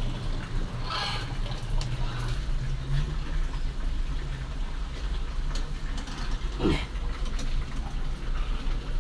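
Water running steadily in pool plumbing, with a constant low hum underneath.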